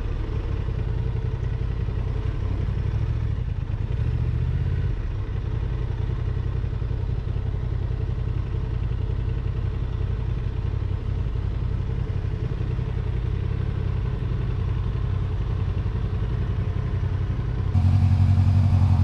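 Motorcycle engine running steadily while riding on the road, with a change in its tone about four seconds in and a louder stretch near the end.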